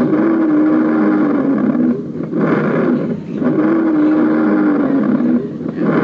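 Recorded breath sounds of prolonged expiration played from a lung-auscultation simulator: two loud breath cycles about three seconds apart, with a short breath in and a long drawn-out breath out carrying a steady low tone. This is the breathing pattern the instructor links to bronchial asthma.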